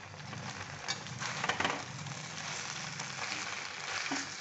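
Batter-fried chicken pieces sizzling in a steel kadai with a little oil and sauce, with the steel spatula scraping and clinking against the pan a few times as they are stirred in.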